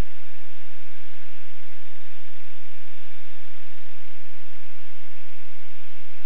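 Steady cockpit drone of a Scheibe SF-25 Falke motorglider in powered cruise: engine and propeller running under a constant airflow hiss, with a restless low rumble underneath.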